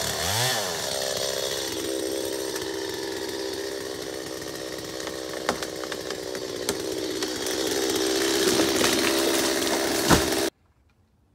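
Stihl MS 250 two-stroke chainsaw revving up and down in the felling cut, then running at a steady speed. A few sharp cracks sound midway, and a heavier thump comes near the end as the elm goes over. The sound cuts off suddenly just before the end.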